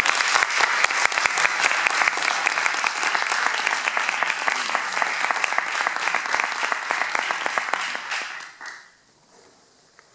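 Concert audience applauding after a solo piano piece; the clapping thins and dies away about eight to nine seconds in.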